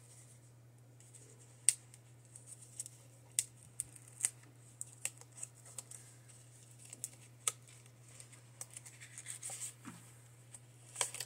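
Fingernails picking and scratching at a cardboard advent calendar door, with scattered sharp clicks and small paper scrapes as the door is pried open and a folded paper slip is pulled out, over a steady low hum.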